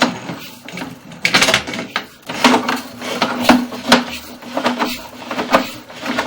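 Sewer inspection camera push cable being fed down the main line through a toilet's floor opening, with irregular scraping and knocking as the cable and camera head rub and bump against the pipe, over a steady low hum.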